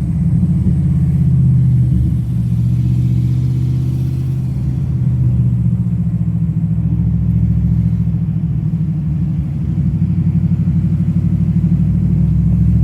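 V8 engine and exhaust of a Holden VF Commodore SSV Redline heard through an open car window while driving: a deep, steady rumble that takes on a fast pulsing in the last few seconds.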